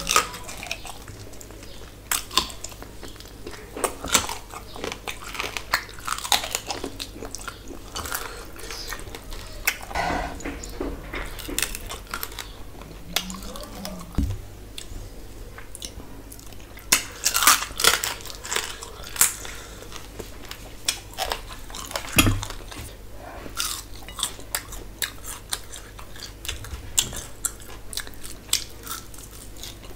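A person chewing and biting mouthfuls of rice and curry eaten by hand, close to the microphone: a long run of irregular wet mouth clicks, busiest a little past halfway.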